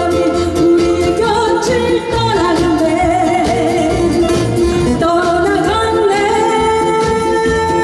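A woman singing a song into a microphone, holding long notes with vibrato, backed by a live band of electric guitar, acoustic guitar and drum kit.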